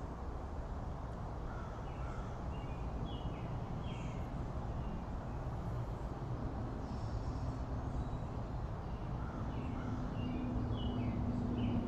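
Birds chirping in short downward-slurred notes that come in small clusters, over a steady low rumble of outdoor background noise.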